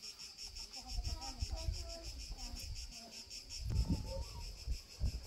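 Insects chirping steadily in a fast, even pulse, with a few low rumbles, the loudest about four seconds in.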